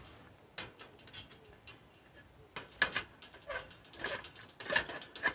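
Panels of a folding 430 stainless-steel wood-burning camp stove clicking and clinking as a front guard plate is handled and fitted onto it. Several short metallic knocks, the loudest about three and five seconds in.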